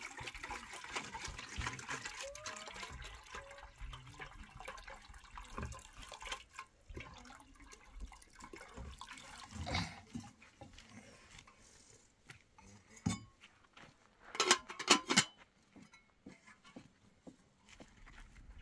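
Water splashing and trickling for the first few seconds, then scattered clicks and a short cluster of loud knocks near the end.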